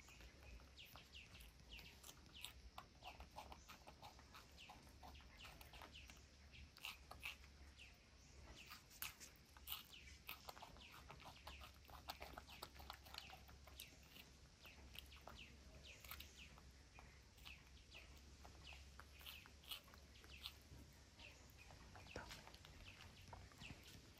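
Near-silent background with many faint, short bird calls scattered throughout, over a low steady hum.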